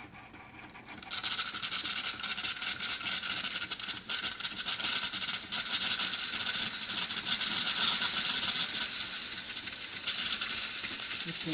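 Saeco Magic Comfort+ espresso machine's steam wand hissing, starting about a second in and building to a steady, loud hiss.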